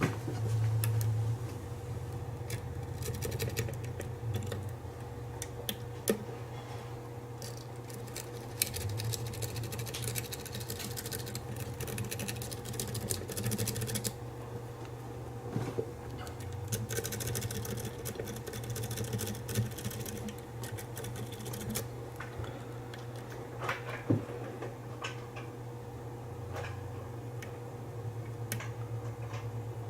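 Steel lock pick and tension wrench working the pin tumblers of an Albert Lebel 'Hostile' challenge lock: irregular small metallic clicks and stretches of rapid fine scratching as pins are set, with a few sharper ticks. A steady low hum runs underneath.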